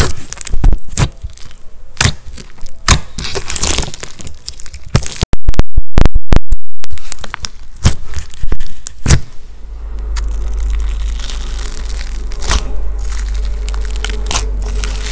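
Slime being squished and stretched by hand, with sharp crackling and popping snaps. About five seconds in comes a short run of very loud, distorted clicks. Later the crackling turns quieter and denser as fingers press into foamy pink slime, over a steady low hum.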